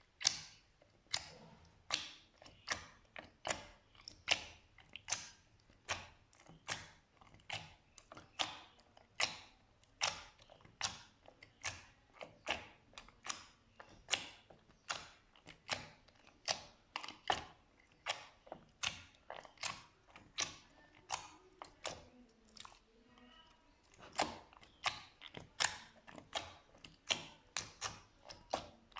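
Slime being squeezed and pressed, popping and clicking as air pockets burst, about two sharp pops a second, with a short lull about three-quarters of the way through.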